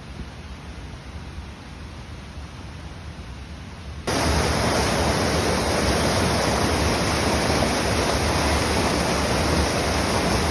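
Aira Force waterfall rushing: a steady roar of falling water, fainter at first and then jumping abruptly louder about four seconds in.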